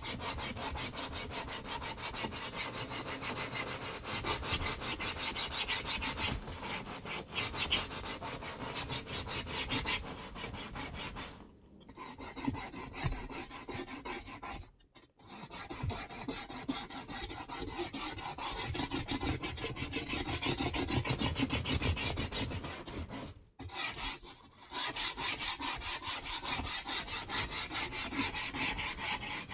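Hand scrub brush working back and forth over cleaner-soaked boat vinyl upholstery in quick, rhythmic strokes. It stops briefly three times, a little under halfway through, around the middle and about three quarters through.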